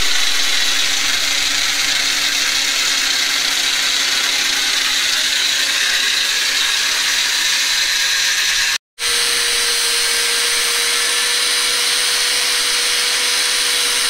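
Electric angle grinder cutting through rusty steel rebar: a loud, steady grinding hiss over the motor's whine. It cuts out for a moment just before nine seconds in, then carries on.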